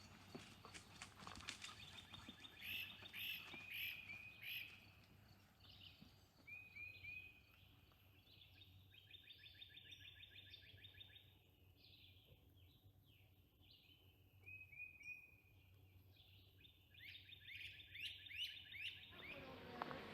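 Faint songbirds singing in woodland: repeated short high whistled phrases and two rapid trills, about nine seconds in and again near the end.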